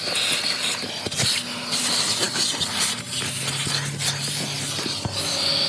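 Car wash vacuum hose running, a steady rush of air being sucked in while it cleans the car's floor, with scattered small clicks.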